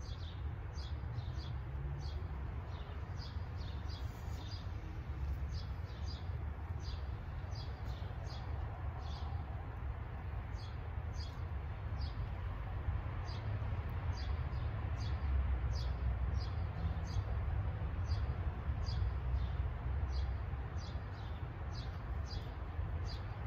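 A small bird chirping over and over, short high chirps about one or two a second, over a steady low rumble.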